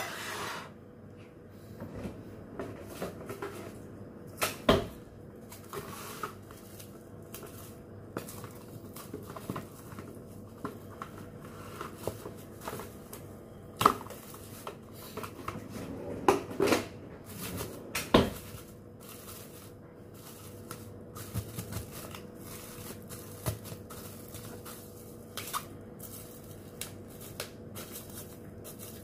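Hands crinkling and rustling a clear plastic bag around a bowl, with scattered clicks and several sharp knocks of the bowl on the countertop.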